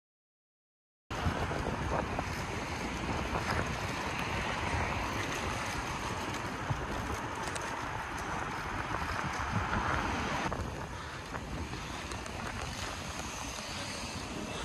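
Wind rushing over the microphone of a camera moving along a road, with road and traffic noise underneath. It starts abruptly about a second in and drops a little about ten seconds in.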